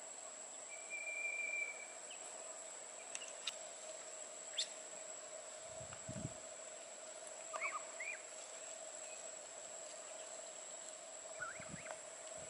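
Quiet outdoor ambience: a steady high insect drone, with a held high whistle-like note about a second in and a handful of short bird chirps scattered through. There is a soft low thump about six seconds in.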